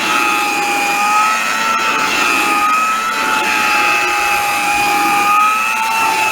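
Vintage Hamilton Beach straight-suction hand vacuum cleaner running steadily: a high motor whine made of a few tones that waver slightly in pitch over a rushing hiss.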